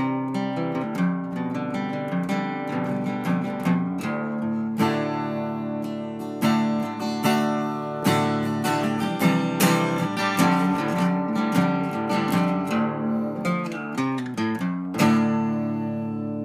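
Acoustic guitar music, picked notes and strums, with a strummed chord about fifteen seconds in that rings on to the end.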